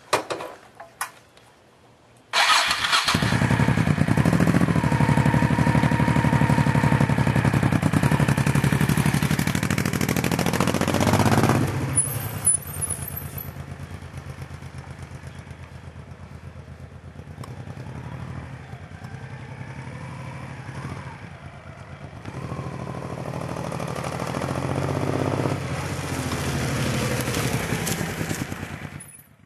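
Motorcycle engine catching abruptly about two seconds in and running loudly, revved up and down. It fades as the bike rides away, with rises in pitch as it pulls off, then grows louder again as it rides back close by near the end.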